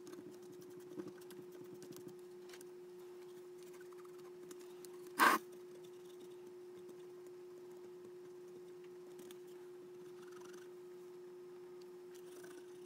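Faint scratching and small ticks of a cotton swab scrubbing inside a car cassette deck's mechanism, over a steady low hum. One brief loud knock about five seconds in.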